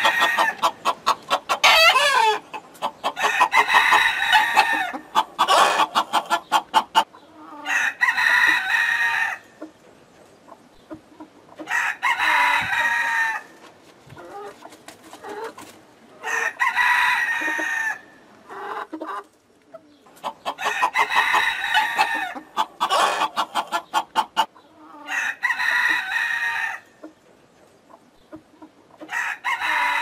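Domestic roosters crowing over and over, a crow every four seconds or so, with hens clucking. The clucking is thickest in the first several seconds.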